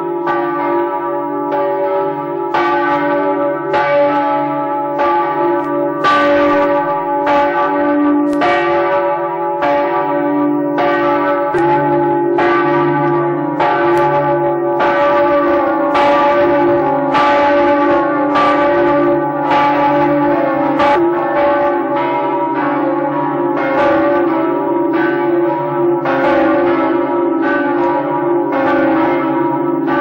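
Large bronze church bells of St Mark's Campanile ringing loudly at close range in the belfry, several swinging at once. Strokes land about once a second over the bells' steady low hum. They are ringing the half hour.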